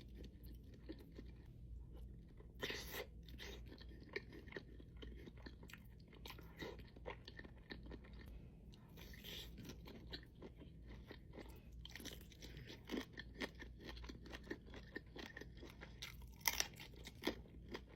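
Close-miked eating of seafood-boil crab: crunching and wet chewing with many small sharp clicks throughout, and a few louder crunches near the end.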